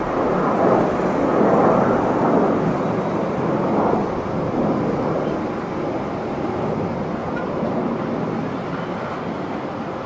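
Twin-engine business jet climbing out after takeoff, its engine noise a broad steady rush that is loudest in the first few seconds and then slowly fades as the jet moves away.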